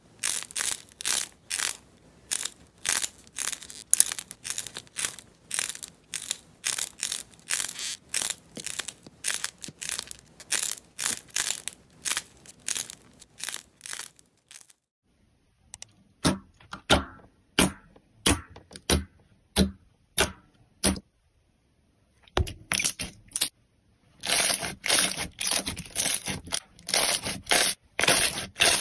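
A thin glossy coating being peeled and torn off soft squishy balls by hand, making a quick run of crackly tearing sounds about twice a second. These come more sparsely with short pauses later. In the last few seconds, hands squeeze and pull clear slime, making wet squelching and popping sounds.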